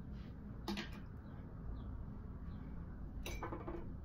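Faint handling and rustling as hair is shaped by hand over a steady low room background, with two short hissing noises, about a second in and again near the end.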